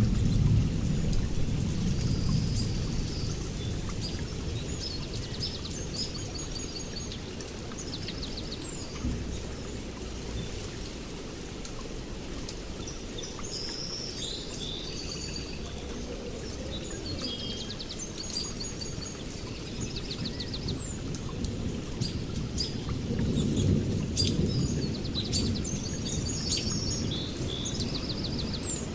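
Birds chirping and trilling in short repeated phrases over a low rumble and a light patter like rain. The rumble is loudest at the start, fades within a few seconds and swells again a little past the middle.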